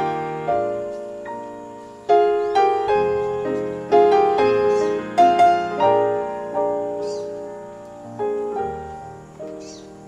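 Background solo piano music: slow notes and chords, each struck and left to ring and fade.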